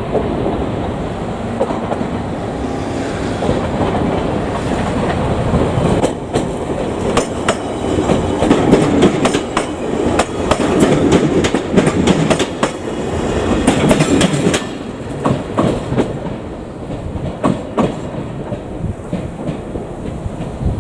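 JR Kyushu electric train passing close by, its wheels clacking over the rail joints in quick runs from about six seconds in until about fifteen seconds, after which the rumble dies down.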